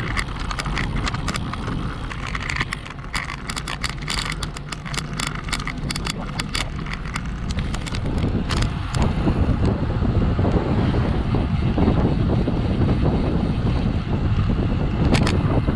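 Road bike rolling over cobblestones, its frame and handlebar-mounted camera rattling with rapid irregular clicks. About halfway through this gives way to a louder, steady rumble of wind on the microphone as the bike rides at speed on smooth asphalt.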